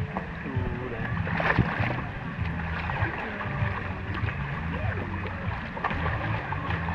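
Water flowing and sloshing around inner tubes on a water-park lazy river, with distant voices.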